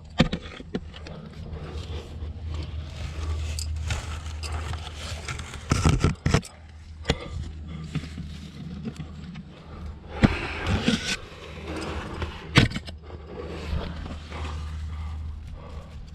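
A climber working up a rock chimney: clothing and gear scraping against the rock, with sharp knocks and clinks several times, over a steady low rumble.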